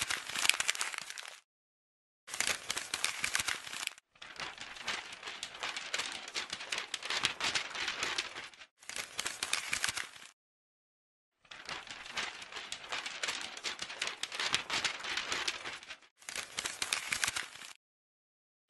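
Paper crinkling and crumpling in several separate stretches of one to five seconds each, each cut off sharply into silence.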